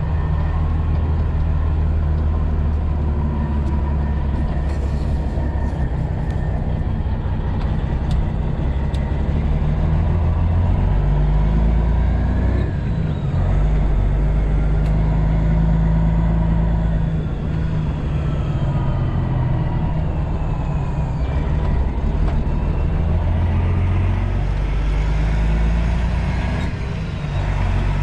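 Semi-truck diesel engine heard from inside the cab, pulling through the gears of a 13-speed manual transmission. Its pitch drops and builds again at each shift, with short dips in the sound about halfway through and again near the end. A faint higher whine rises and falls along with it.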